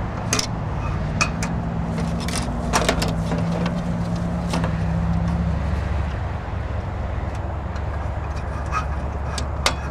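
Scattered small metal clicks and clinks of galvanized split key rings being worked open and threaded through the sign's grommets and onto the post's eye hooks, over a steady low mechanical hum.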